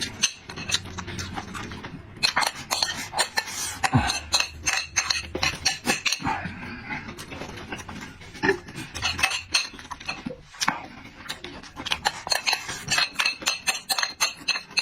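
Eating utensils clicking and clinking against bowls and plates in a rapid, irregular run of short sharp taps.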